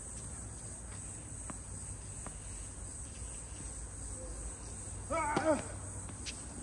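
Crickets chirping steadily in a high, even band, with a few faint knocks and a brief call from a person's voice about five seconds in.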